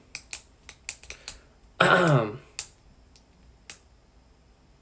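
A quick run of light, sharp clicks, about eight in the first second and a half, then a few scattered ones; a short hummed voice sound with falling pitch comes about two seconds in.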